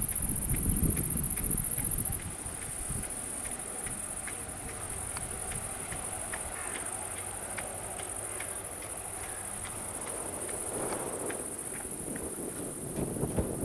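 Crickets chirring in a steady, very high-pitched band, louder for the first two seconds and then dropping abruptly. Low gusty rumbling comes at the start and again near the end.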